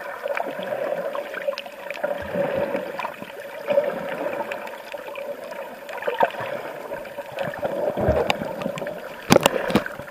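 Underwater sound through a camera's waterproof case: a steady, muffled rush of moving water with many small scattered clicks, and a short burst of louder knocks about nine seconds in.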